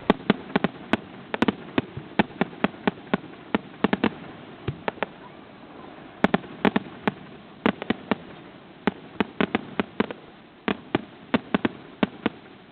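Fireworks going off: an irregular rapid series of sharp bangs and pops, several a second, some in quick clusters.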